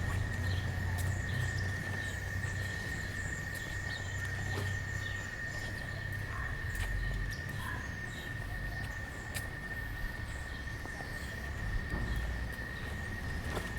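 Street ambience of a town square. A low traffic rumble eases off about five seconds in, under a steady high-pitched whine and scattered faint chirps and clicks.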